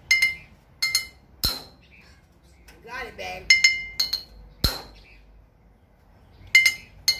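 A knife blade striking the neck of a glass bottle in repeated attempts to snap off its top: several sharp, ringing clinks, two of them in quick succession about 3.5 s in, with two heavier, duller knocks at about 1.5 s and 4.7 s. The bottle does not break.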